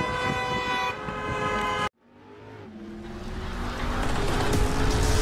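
A car horn sounding steadily with several tones together, cut off abruptly after about two seconds. After the cut, a low rumbling sound swells up steadily to the end.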